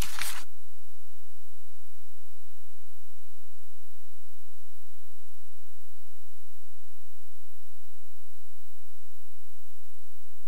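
Steady electrical hum and hiss from the meeting room's microphone and sound system, with no voices; the last spoken word cuts off just after the start.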